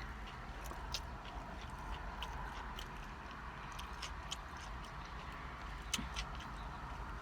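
A person chewing a tuna salad sandwich: irregular wet mouth clicks and smacks, with a sharper click about six seconds in.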